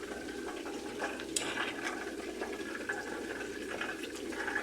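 Food cooking in a pan on the stove, a steady sizzle with a few light clicks of a utensil.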